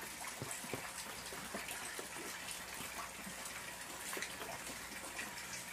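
Light rain on an outdoor fish pond: a steady, quiet patter of water with scattered small drips.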